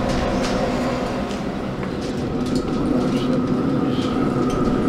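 Steady electric hum of a vertical pellet smoker's fan running, with a few faint clicks and knocks; a higher steady tone joins about two seconds in.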